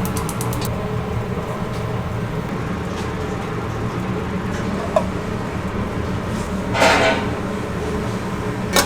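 Restaurant kitchen ambience: a steady low machine hum, with a few light clicks and a short clatter of kitchenware about seven seconds in.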